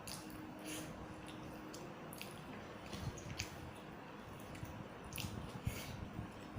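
Wet mouth sounds of someone eating up close: soft chewing with a handful of short, wet smacking clicks.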